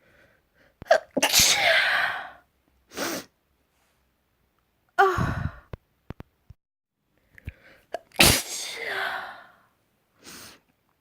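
A person sneezing wetly three times, a few seconds apart. Each sneeze is a sudden burst followed by a spraying rush of air. Shorter, quieter breaths come between them.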